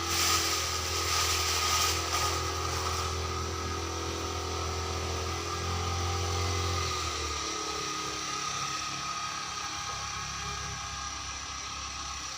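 Petrol brush cutter engine running steadily at cutting speed. About seven seconds in, its pitch falls as it eases off the throttle, and it runs on lower and a little quieter.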